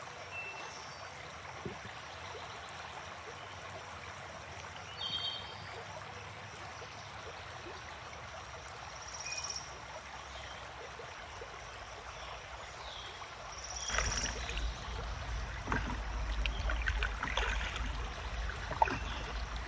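Calm river water trickling with a steady soft hiss and a few short high tones. About fourteen seconds in a low rumble comes onto the microphone and a paddleboard paddle starts dipping and splashing in the water, several strokes a second or so apart.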